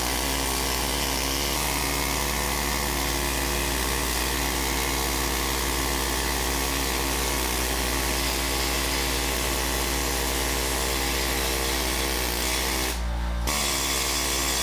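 A handheld electric power tool, drill-like, running steadily under load while the engine block is cleaned up. It dips briefly near the end.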